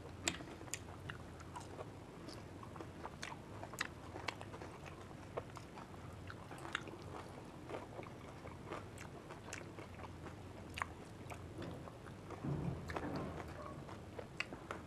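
Fuchka (pani puri) shells stuffed with green chilies being bitten and chewed, heard as scattered crisp crunches and clicks at about two a second over soft chewing.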